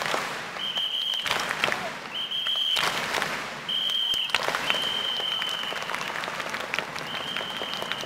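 A whistle blown in five short, steady, high-pitched blasts, the fourth held longest, over a crowd clapping.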